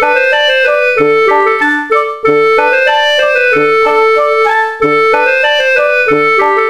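Background music: a bright keyboard melody of short, quickly changing notes over a low note that recurs about once a second.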